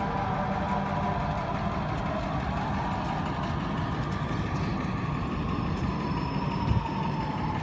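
A heavy vehicle's engine running steadily in street traffic: a low rumble with a whine that slowly falls in pitch.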